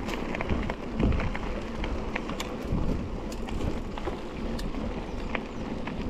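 Wind buffeting the microphone as a low, steady rumble, with many scattered light clicks and rattles over it.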